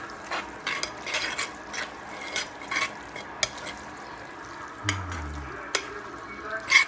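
Beef, carrots and onions frying with a steady sizzle in a pan while being stirred, with irregular scrapes and knocks of the utensil against the pan, the loudest near the end.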